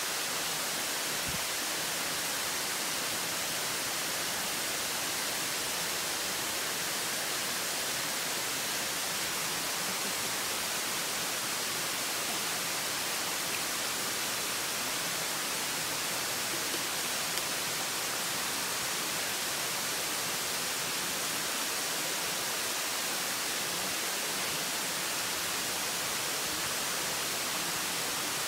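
Steady hiss of a waterfall cascading down a rock face, an even rushing of water with no breaks.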